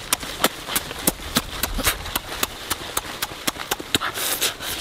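Close-up mouth sounds of a person eating roasted chicken by hand: wet chewing clicks and lip smacks, about three a second, uneven.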